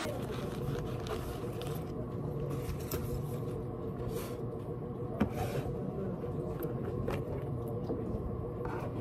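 Steady indoor background hum with a few faint clicks and taps from a metal spoon and stainless steel food containers being handled.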